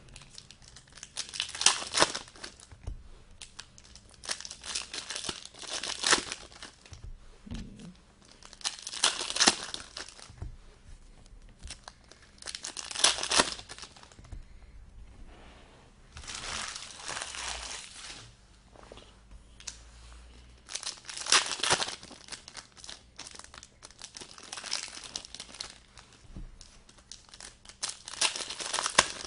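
Foil trading-card pack wrappers being torn open and crinkled, in repeated bursts of a second or two.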